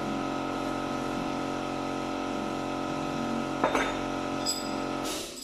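A steady machine hum made of several even tones runs and then cuts off abruptly about five seconds in. A sharp click just under four seconds in and a few light metallic clinks come from metal parts being handled at the engine.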